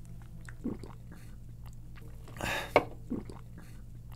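Gulping and swallowing of soda being chugged, a few soft gulps, with a short breathy rush and a sharp click about two and a half seconds in.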